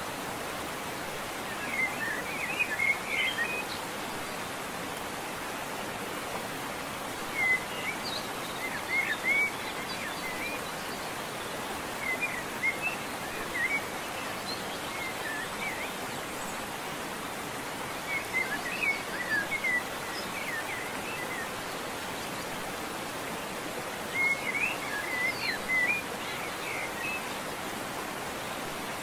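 A songbird singing short bursts of quick chirps about five times, a few seconds apart, over a steady rushing hiss.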